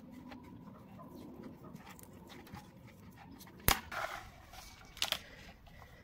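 Quiet handling noises as black insulating tape is wrapped over a wire joint, with one sharp click a little past halfway and a couple of short rustles after it.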